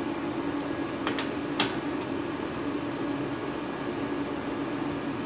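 Cooling fans of switched-on inverter welding machines running with a steady hum. A few light clicks come about a second to a second and a half in.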